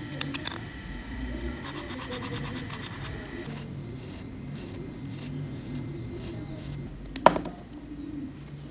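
Sandpaper on a wooden sanding stick scraping the edge of a small plastic model-kit part, first in quick back-and-forth strokes, then in slower, spaced strokes. There is a single sharp click near the end.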